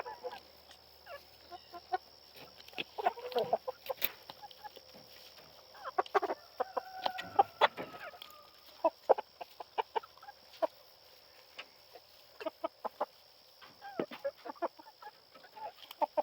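Meat chickens clucking in short, scattered calls, mixed with many sharp taps, with a faint steady high-pitched whine underneath.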